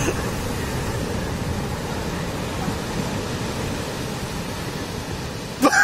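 Surf breaking on a beach: a steady rush of waves, with a voice starting to shout right at the end.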